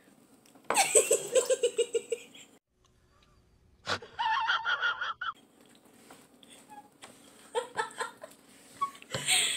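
Laughter: a run of quick, evenly pulsed laughs lasting about two seconds, then after a short gap another burst of laughing.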